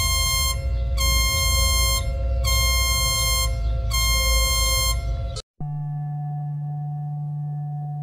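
Synthesized emergency-alert alarm: a high electronic beep, about a second long, repeats four times over a steady lower tone and a low rumble. About five and a half seconds in it cuts off sharply and is replaced by a steady low electronic drone.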